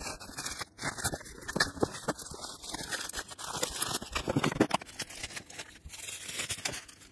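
Plastic shipping envelopes being torn open and comic books in bubble wrap and cardboard pulled out and handled: a continuous jumble of tearing, crinkling and scraping of plastic, bubble wrap and cardboard.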